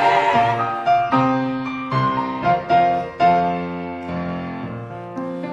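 Piano accompaniment playing an instrumental interlude between sung verses: struck notes and chords, each decaying after it is played. The singers' last held note, with vibrato, dies away in the first second.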